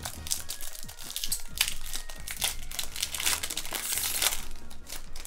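Foil wrapper of a Pokémon TCG booster pack crinkling as it is handled and opened, a run of many quick crackles with a denser patch about four seconds in.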